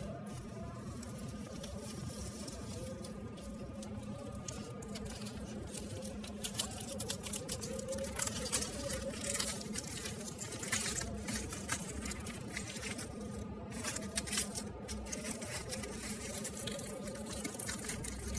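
Crumpled aluminium foil crinkling and artificial tree branches and tinsel rustling as a hand rummages through them, a dense run of small crackles that grows busier about six seconds in.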